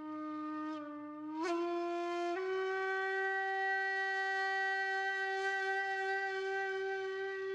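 Intro music: a single horn-like wind instrument holding a long note that steps up in pitch twice in the first couple of seconds, then holds steady.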